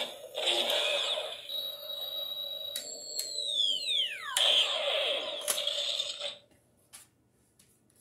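Spengler's Neutrona Wand toy blaster playing its electronic proton-stream sound effect: crackling with a steady high whine that drops in a steep falling sweep about three seconds in, then more crackle that cuts off about six seconds in.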